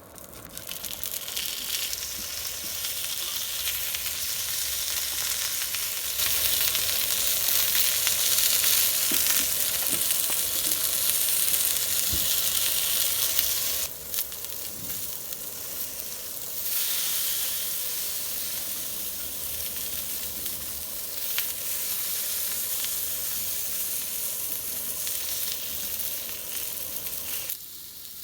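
Food sizzling as it fries in a hot pan, a steady hiss that grows louder, drops back suddenly about halfway through, and cuts off just before the end.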